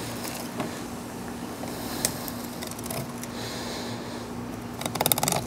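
Fillet knife cutting along a permit's backbone and ribs: faint scraping with a few light ticks, then a quick run of crackling clicks near the end as the blade goes through bone. A steady low hum runs underneath.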